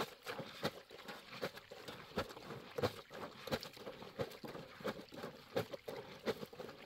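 Irregular clattering knocks, two or three a second, uneven in strength.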